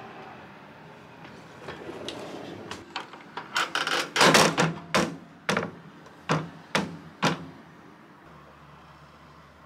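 Handling noise around a countertop microwave in a cabinet niche: a longer scraping clatter about four seconds in, then several sharp knocks about half a second apart.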